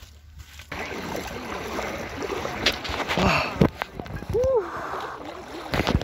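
Lake water sloshing and splashing as a person wades waist-deep, over a steady wash of water and wind noise, starting about a second in, with a few brief voices of other bathers.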